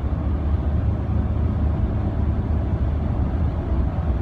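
Steady low drone of a 2006 Ford F-150 pickup cruising in overdrive at about 60 mph, heard from inside the cab: engine and road noise at a low, unchanging engine speed. The transmission is holding overdrive without slipping.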